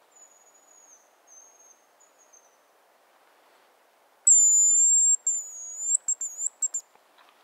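Hazel grouse call on a high, thin whistle: a faint, slightly falling whistle in the first couple of seconds, then about four seconds in a loud long whistle that breaks into short quick notes at the end, the pattern of a hazel grouse decoy whistle used to lure the bird.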